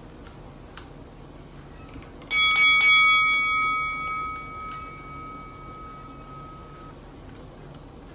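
A bell-like metallic chime, struck three or four times in quick succession, then ringing out and fading over several seconds.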